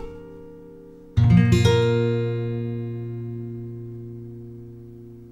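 Guitar background music: a chord strummed about a second in, then left to ring and fade slowly.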